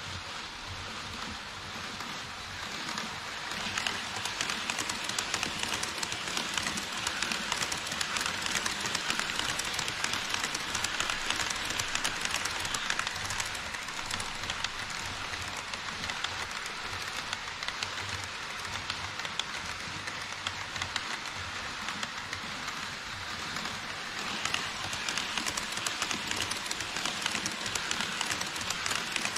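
HO scale model trains running on Kato Unitrack past a plastic truss bridge, first Koki 104 container wagons, then an E5 series shinkansen model. Their metal wheels give a continuous fine rattling and clicking on the track, louder from about four seconds in and again near the end as the trains pass close.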